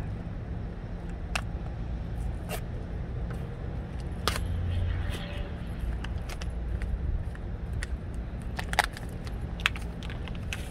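A few short, sharp metal clicks and clinks as a small metal quick-connect fitting is worked by hand. The fitting is rusted inside and stuck, so it will not open and close as it should. Underneath is a steady low rumble.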